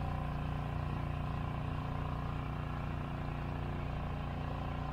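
Boat's engine running steadily as the boat cruises, a constant low hum that does not change in speed or loudness.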